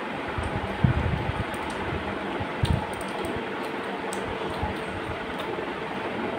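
A person eating by hand and chewing, with faint crunchy clicks from the mouth and two dull low thumps, one about a second in and one near three seconds, over a steady background hiss.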